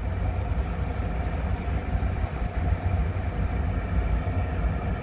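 Skid steer's cab blower fan running steadily, a low hum with faint even tones, with the key on during warm-up before cranking. Its noise covers the clicking the machine normally makes while warming up.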